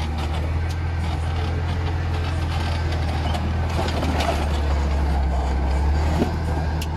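Off-road 4x4's engine running at low revs with a steady low drone as it crawls over rocks, with a few light clicks and knocks.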